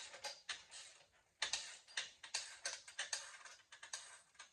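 Hand ratchet wrench clicking in quick runs as its handle is swung back and forth, loosening the bolts that hold the bench vise to the table. The clicking grows louder and busier about a second and a half in.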